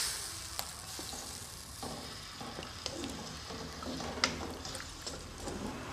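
Squid and shrimp sizzling in wet chili sauce in a wok while a slotted spatula stirs them, with a few sharp clicks of the spatula against the pan; the loudest click comes just after four seconds in.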